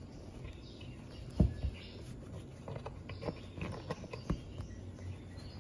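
Scattered light knocks and rustling as hands work T-shirt yarn strips around the nails of a wooden rug loom, with one louder knock about a second and a half in.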